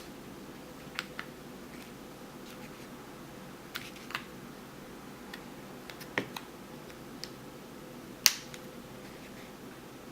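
Scattered small, sharp clicks and taps of an iPhone 4 back glass cover being handled and slid down into place on the phone, the loudest about eight seconds in.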